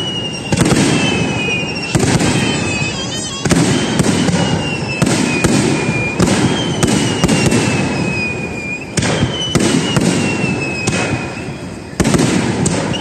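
Fireworks display: aerial shells bursting one after another, a sharp bang every second or two, each trailing off in a rolling rumble. A high tone slides slowly downward several times over the bursts.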